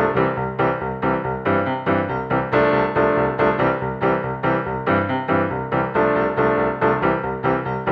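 Background music: a keyboard/piano tune played in quick, evenly spaced notes with a steady beat.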